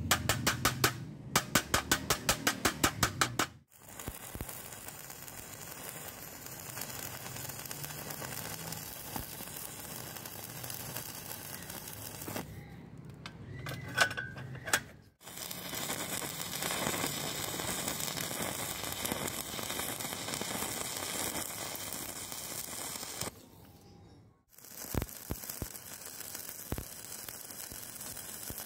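Stick-welding arc burning steadily on angle iron in three runs of several seconds each, with short breaks between them. Before the first run comes a few seconds of rapid, even tapping.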